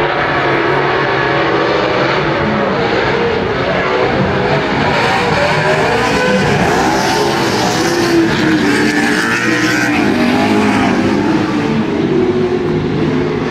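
A pack of off-road race trucks racing past, several engines revving at once, their pitch rising and falling as they accelerate and lift.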